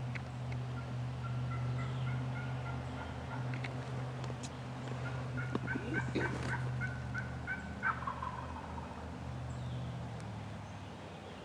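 Wild turkey calling: two runs of short, evenly spaced yelping notes, the second louder and ending in a short falling note about eight seconds in. A steady low hum runs underneath.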